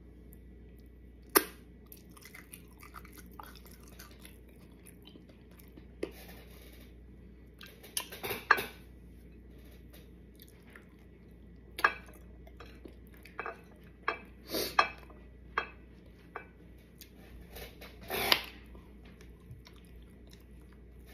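A person chewing tacos close to the microphone, with scattered sharp crunches and clicks; the loudest come about a second in, near the middle and near the end.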